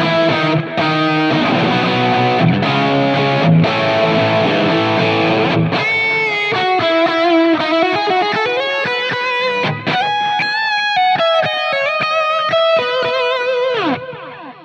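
Electric guitar through a Helix running a clone of a Vox AC30, on a lightly overdriven tone with chimey highs. Full chords ring for about six seconds, then give way to a singing single-note lead with wide vibrato, which stops near the end.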